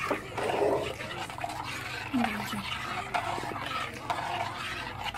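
Spoon stirring rice, milk and sugar in a metal pot: a steady swishing with small scrapes.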